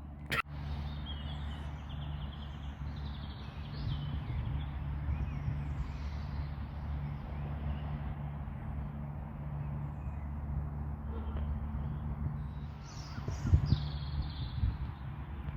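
Outdoor park ambience: birds calling on and off over a steady low background rumble, with a few louder calls about thirteen seconds in. A single sharp click sounds just after the start.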